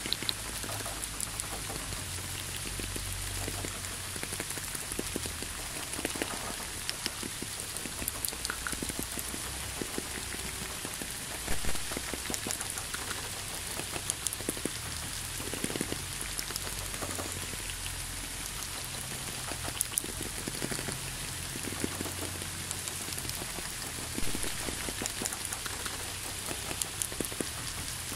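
Steady rain falling, with many individual drops tapping close by and a couple of louder splats, about 11 seconds in and near 24 seconds, over a faint low rumble.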